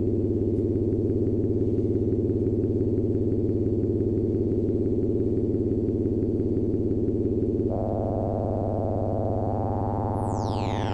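Analog synthesizer drone: a buzzy low oscillator tone filtered through the Behringer 121 Dual VCF, its top end cut off by the filter. About eight seconds in, the filter opens and the tone turns brighter. Near the end, a high pitched sweep falls steeply.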